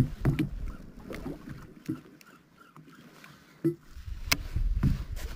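Water knocking and slapping against a small boat's hull on open sea, with scattered short knocks and clicks, a sharp click a little past four seconds in, and a low rumble near the end.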